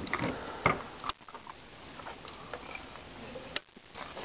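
Handling noise from a camera in a plastic cover being swung around: scattered sharp knocks and clicks, most of them in the first second, with one more near the end, over a steady faint hiss.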